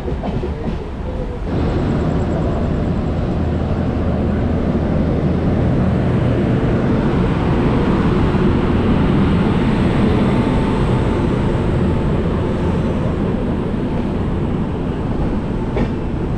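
Uday Express passenger train running along the track, a steady loud rumble of wheels and carriage that gets louder about a second and a half in.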